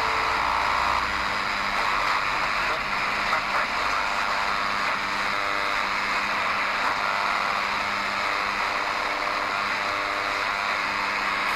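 DEGEN DE1103 shortwave receiver in SSB mode being tuned up through about 3.7 to 4.0 MHz, putting out a steady hiss of static and buzzing noise with faint steady tones. The buzz is the unexplained interference the listener finds across the whole 3 to 12 MHz span.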